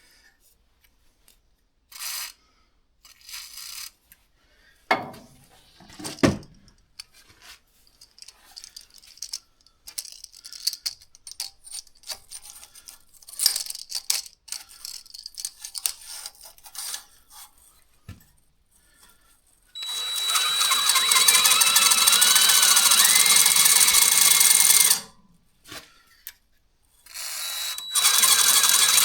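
Handling knocks and clatter as a small cylinder hone is set into a motorcycle cylinder bore. Then a drill spins the hone in the bore: a steady motor run with a high whine lasting about five seconds, which stops and starts again near the end. The hone is enlarging the bore's tight centre section so that the piston will fit.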